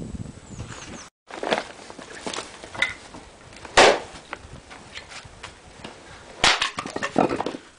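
Axe blows striking a black locust round on a chopping block: a sharp crack about four seconds in and another a little before the end, with lighter knocks of wood between.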